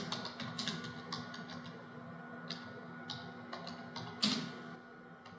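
Someone typing on a computer keyboard: a quick run of key clicks at first, then slower, scattered taps, with one louder key stroke about four seconds in.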